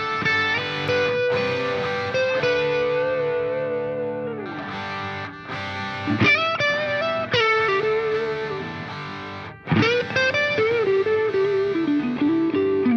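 Background music: a distorted electric guitar playing sustained lead notes with bends and slides between them.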